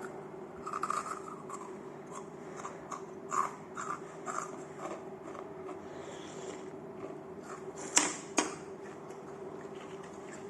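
Eating at a table: scattered small clicks and scrapes of utensils against dishes, with two sharp clacks about eight seconds in, over a steady low hum.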